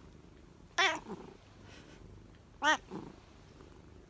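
Domestic cat meowing twice, short calls about two seconds apart, each followed by a softer, lower sound.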